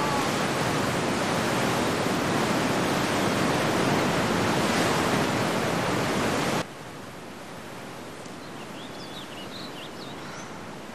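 Loud, steady rushing of wind, cut off abruptly about two-thirds of the way through, leaving a quiet hiss with a few faint bird chirps.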